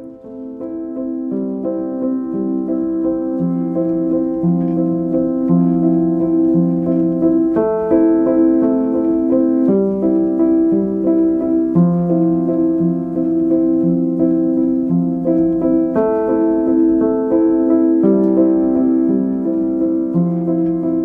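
Soft instrumental keyboard music: sustained chords over a slow bass line that steps to a new note about once a second. It swells in over the first couple of seconds.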